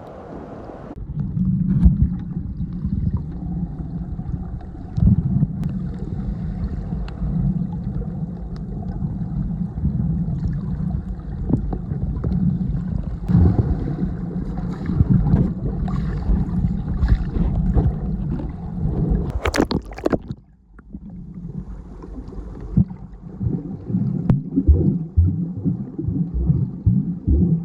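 Muffled water movement picked up by a camera held underwater while snorkeling: a heavy low rumble with scattered clicks and knocks. It drops out briefly about twenty seconds in, then resumes.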